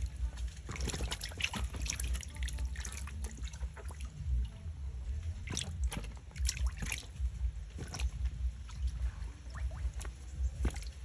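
Water splashing and trickling in irregular small splashes, over a steady low rumble.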